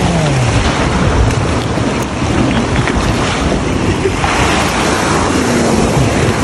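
Steady rush of ocean surf with wind noise on the microphone, the surf swelling louder about four seconds in.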